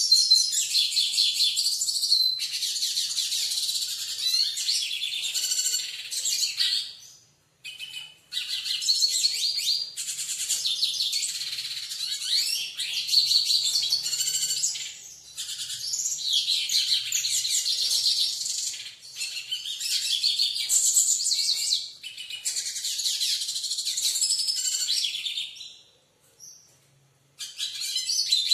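Caged siskin (Brazilian pintassilgo) singing long phrases of rapid twittering, each lasting several seconds, with short breaks between them.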